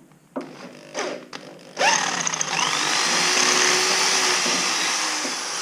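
Electric drill boring out a stripped bolt hole in a dirt bike's engine, to make room for a helicoil thread insert. A short blip comes about a second in. The drill then starts about two seconds in, speeds up and runs steadily as the bit cuts.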